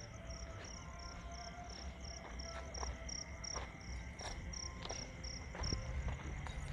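Cricket chirping in a steady rhythm, about three short high chirps a second, stopping about a second before the end. Under it runs a faint steady high tone, with scattered light clicks and a low rumble.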